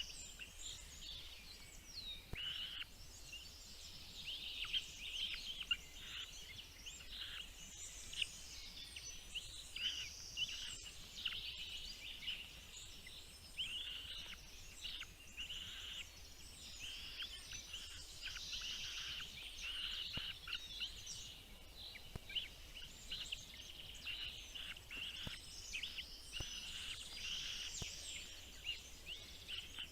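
Small birds chirping continuously, many short high calls overlapping one another without a break.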